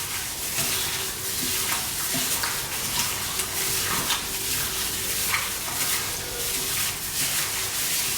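Raw chicken pieces being mixed through a wet marinade of egg, sauces and cornstarch: steady wet squishing and squelching with irregular small crackles.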